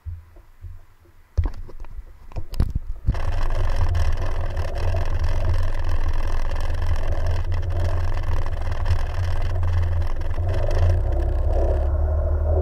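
Jet ski running steadily underway, after a few knocks and bumps about a second and a half in.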